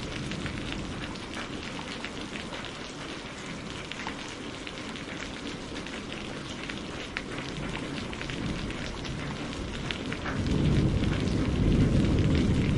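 Steady rain on a greenhouse roof, a dense hiss with many distinct drop ticks. About ten seconds in, a low rumble of thunder swells up and becomes the loudest sound.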